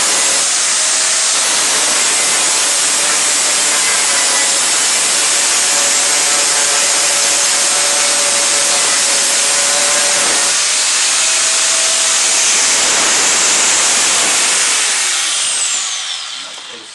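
A power tool running steadily under load with a loud, harsh hiss. About fifteen seconds in it is released and winds down with a falling whine.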